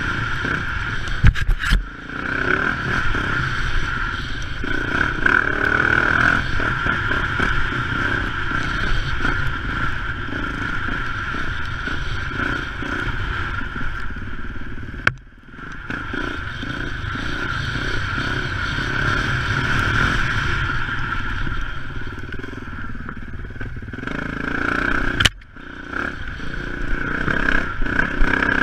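Dirt bike engine running under way on a trail ride, steady and continuous. The sound breaks off abruptly for a moment twice, about halfway through and again near the end.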